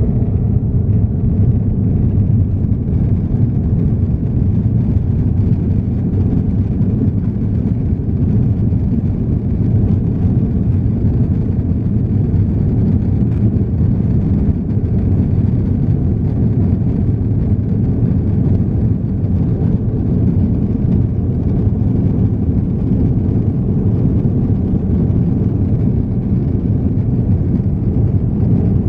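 Airbus A330-200 taking off, heard inside the cabin behind the wing: a loud, steady, deep rumble of the engines at takeoff thrust.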